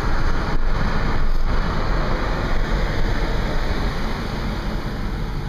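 Steady road noise of a car being driven: tyres and engine making a continuous rushing rumble.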